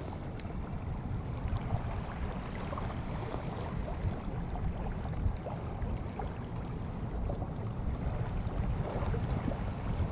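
Wind buffeting the microphone in a steady, gusty low rumble, with waves washing at the shore underneath.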